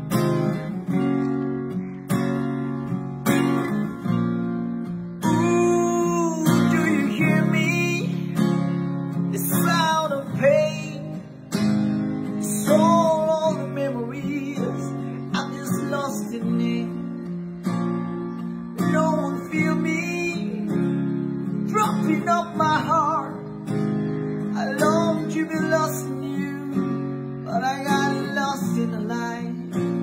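Acoustic guitar strummed, with a man singing over it from about five seconds in.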